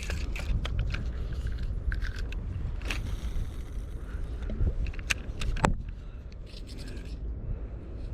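Scattered sharp clicks and scrapes over a steady low rumble, with a short run of rapid ticks near the end.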